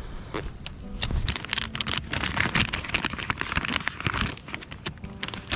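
Clear plastic packet of soft-plastic grub lures crinkling and crackling as it is handled and opened.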